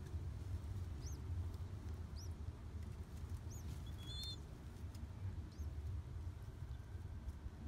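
Newly hatched pigeon squab peeping: about five short, thin high squeaks spread a second or so apart as it begs while the hen feeds it. A steady low rumble underlies them and is the loudest sound.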